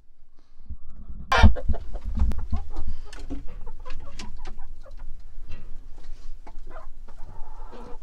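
Chickens clucking, mixed with close knocks and rustling, with one loud knock about a second and a half in.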